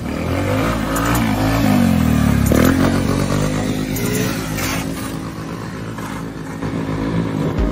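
Motorcycle engines revving as riders pass, their pitch rising and falling, with a car going by.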